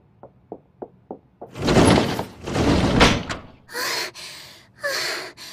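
Quick footsteps tapping closer, about three a second. Then a classroom sliding door is pulled open with a loud rattle and slam, followed by two short breathy sounds.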